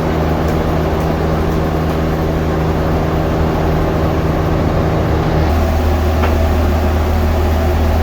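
Sawmill machinery running steadily with a low engine-like hum. The hum shifts in pitch abruptly about five and a half seconds in.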